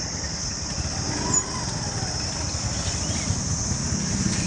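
Motorcycle engines running in a dense crowd of motorbikes moving off together, heard from a moving motorbike as a steady low rumble with a constant hiss.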